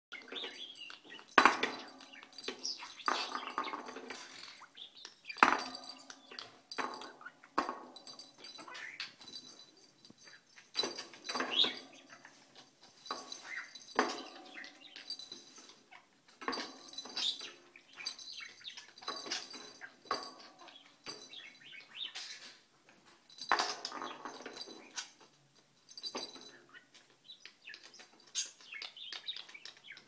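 Budgerigar chirping and chattering while knocking small toy balls about, with irregular clicks and clatters mixed with short chirps.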